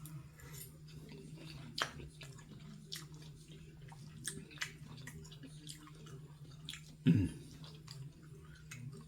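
A person chewing food close to the microphone: wet mouth sounds with scattered small clicks and smacks over a steady low hum. A louder low thump about seven seconds in.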